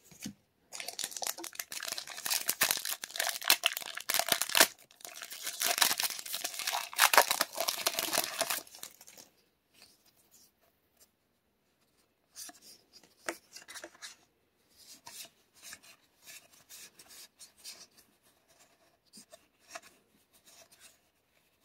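A foil booster-pack wrapper is torn open and crinkled, loud and crackling for about eight seconds. After a short pause come fainter, scattered rustles and taps of trading cards being handled.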